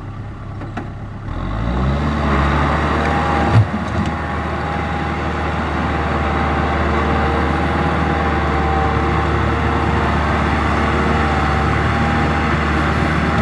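Kubota M6040SU tractor's four-cylinder diesel engine revving up over the first couple of seconds, then running hard at steady high revs while the tractor is stuck in deep mud with its rotary tiller. A single sharp knock about three and a half seconds in.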